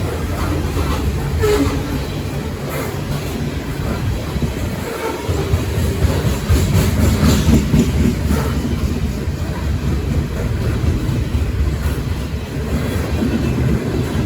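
Train cars rolling past with a steady low rumble, the wheels clicking over the rail joints.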